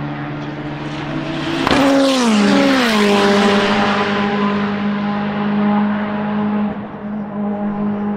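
Time-attack race car passing at speed, its engine note dropping in pitch as it goes by about two to three seconds in, then running on steadily at the lower pitch as it moves away. A brief sharp crack comes just before it passes.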